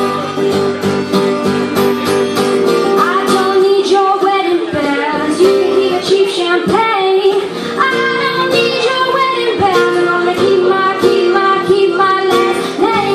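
A teenage girl singing a song live with a strummed acoustic guitar, her voice holding and sliding between long notes over a steady strumming rhythm.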